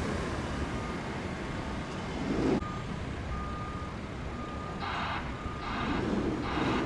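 A construction vehicle's reversing alarm sounding in hissy, evenly spaced pulses from about five seconds in, twice, over a low steady vehicle rumble.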